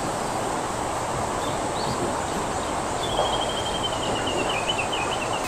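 Steady rush of a fast mountain stream tumbling over rocks. Above it a bird gives a few short high chirps and, about three seconds in, a long pulsed call that slowly falls in pitch.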